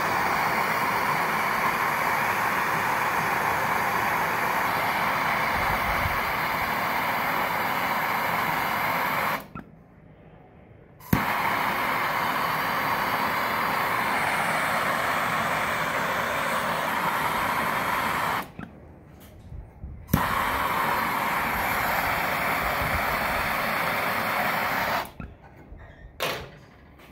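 Handheld gas torch flame hissing steadily while it heats a glass bead onto a steel tip. It burns in three runs, each started with a click, with two short breaks between them, and shuts off a couple of seconds before the end.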